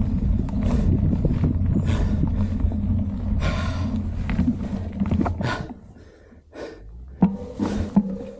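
Mountain bike rolling fast down a dirt trail: a low rumble of wind on the microphone and tyres on packed dirt, with the rider breathing hard. About six seconds in the rumble drops away as the bike slows, and a couple of sharp knocks follow as it rattles over bumps.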